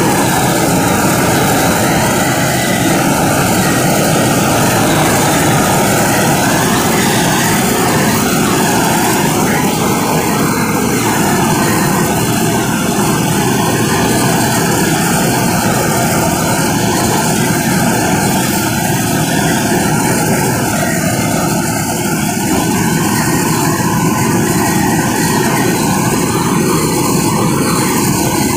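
Handheld gas torch burning with a steady rushing hiss, its flame played over a painted steel tube to heat and loosen the old paint.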